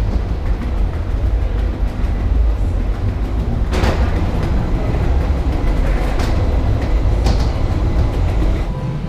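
Steady low rumble of a moving vehicle heard from inside, with short rattling knocks about four, six and seven seconds in.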